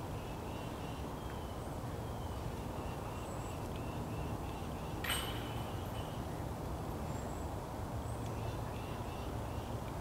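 Outdoor woodland ambience: a steady low rumble with faint, scattered bird calls, and one sharp click about halfway through.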